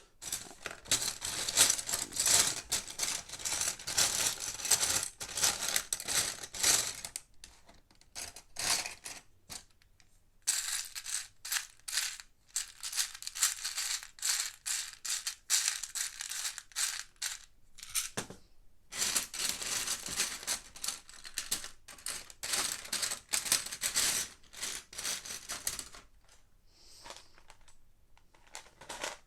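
Loose plastic Lego pieces rattling and clicking against each other as they are handled and sifted, in busy stretches with short pauses, easing off near the end.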